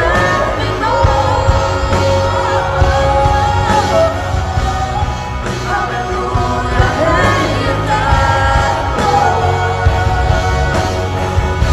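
Live Christian pop-rock worship music: a singer over a full band with drums and bass.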